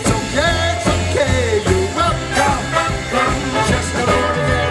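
Live swing band playing a loud, continuous instrumental passage, with a steady repeating beat in the bass under shifting melody lines.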